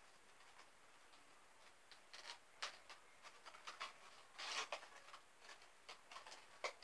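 Small toy being fiddled with in the hands: faint, scattered clicks and rustles, with a louder rustle about halfway through.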